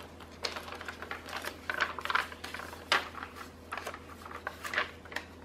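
Thick paper pages and card inserts of a handmade junk journal being turned and handled: a run of soft rustles and light clicks and taps, with a sharper flick about three seconds in.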